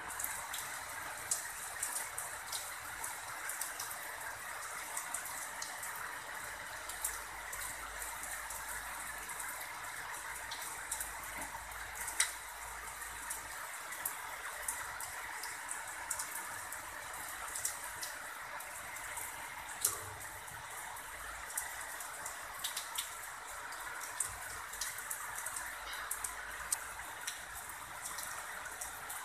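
Heavy rain falling steadily: an even hiss with frequent sharp drip clicks from drops striking nearby surfaces.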